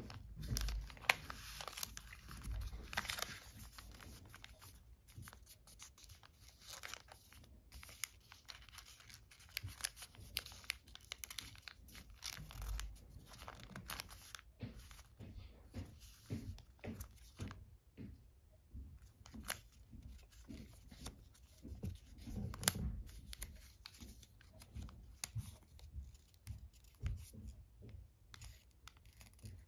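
Origami paper being folded, creased and tucked by hand: irregular crinkling and rustling, with a short quiet gap a little past the middle.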